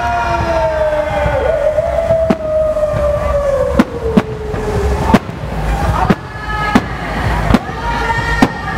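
Aerial fireworks bursting: about eight sharp bangs spaced roughly half a second to a second apart, starting about two seconds in, over a steady low rumble. A long tone slides slowly down in pitch during the first five seconds, with shorter tones after.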